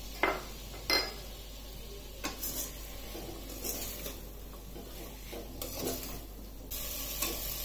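A steel spatula stirring and scraping chopped vegetables around a pressure cooker pan, with knocks and scrapes of metal on metal and a low sizzle of the vegetables frying in oil. Two sharp clinks in the first second.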